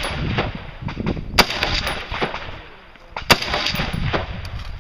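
FN SCAR rifle firing two single shots about two seconds apart, each followed by a long echo rolling back off the quarry walls; the echo of a shot fired just before is still fading at the start.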